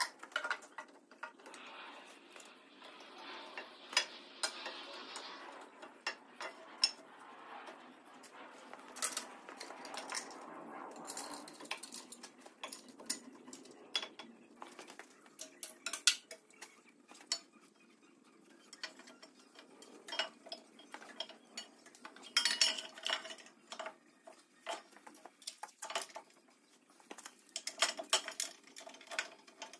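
Light metal clinks, knocks and scrapes of a painted steel bellhousing shield being handled and fitted against a tractor's bellhousing, with a longer scraping stretch about two seconds in and a busier cluster of knocks about two-thirds of the way through.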